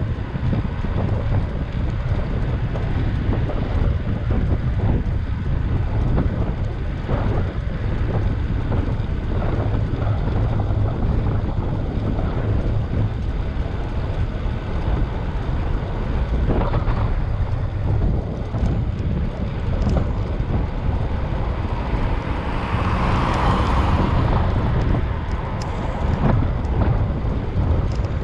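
Wind buffeting the microphone of a camera on a moving bicycle: a steady low rumble with a hiss above it and a few brief knocks. About 22 seconds in, a brighter hiss swells and fades over two or three seconds.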